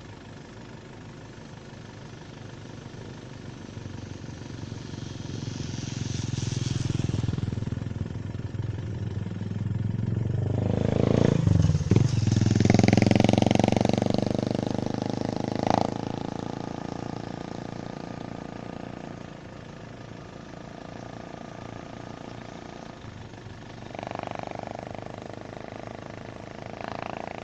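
A motorcycle tricycle passes close by: its engine grows louder over several seconds, is loudest in the middle with a couple of sharp clacks, then fades away. Another motorcycle goes by briefly near the end.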